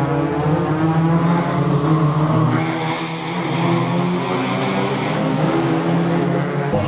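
Engines of small saloon racing cars running as the cars pass through a corner one after another, the engine notes holding steady and shifting in pitch. The sound changes abruptly near the end.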